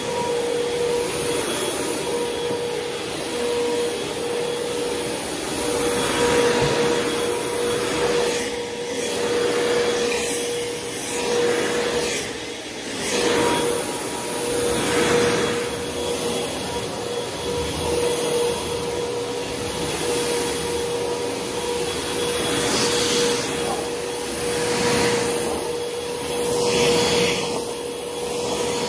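Upright vacuum cleaner running on carpet: a steady motor whine under the rush of suction, swelling and dipping every second or two as it is pushed back and forth.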